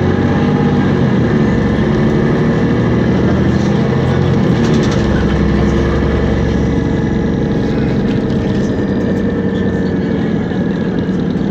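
MAN NL223 city bus under way, heard from inside the cabin: its diesel engine and Voith DIWA automatic gearbox run steadily as it drives along.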